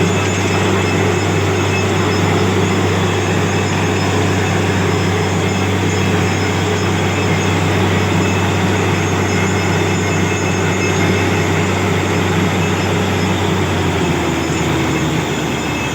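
Borewell drilling machine running with a steady, loud engine drone; its pitch drops and shifts about fourteen seconds in.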